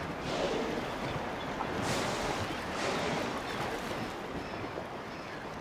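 Orcas surfacing in open sea: water splashing and washing, with a few louder whooshes about two and three seconds in.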